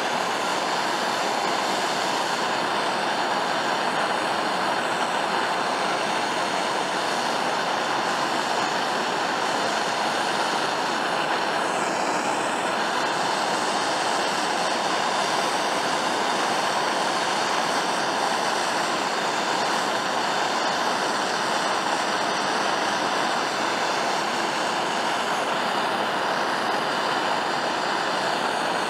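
Handheld gas torch flame burning with a steady, even hiss while it heats the aluminum skeg and welding rod.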